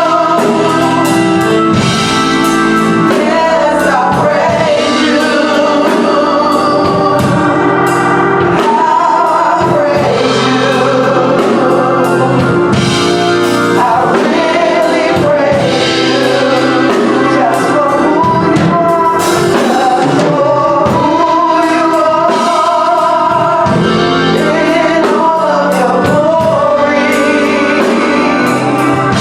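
Gospel choir singing with band accompaniment and a steady beat of percussive hits.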